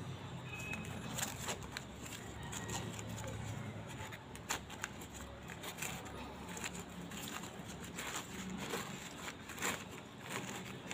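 Newspaper rustling and crinkling as it is unwrapped from small plant cuttings by hand, with irregular sharp crackles.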